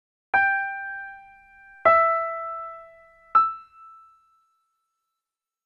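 Three single keyboard notes with an electric-piano tone, about a second and a half apart, each struck and dying away. The second is slightly lower than the first, and the third is the highest and shortest. The notes are played as a test of picking out the highest pitch.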